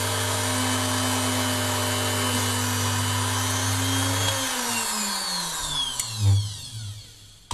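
Mini jewelry drilling machine's electric motor running at a steady pitch, then switched off about four seconds in and winding down in falling pitch, with a short burst of power about six seconds in.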